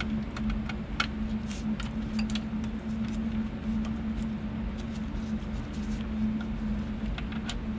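Scattered light clicks and rustles of gloved hands handling wires and pushing bulb sockets and connectors into the back of a 1966 Ford Mustang instrument cluster, most of them in the first couple of seconds and a few near the end, over a steady low hum.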